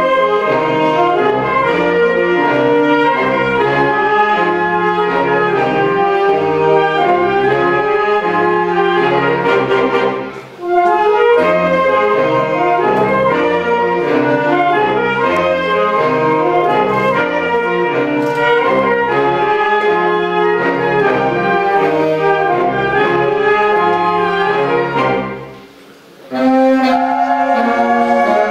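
Live wind band of clarinets, saxophones and brass playing a busy ensemble piece. The band breaks off briefly about ten seconds in, and again for about a second near the end, then comes back in on held chords.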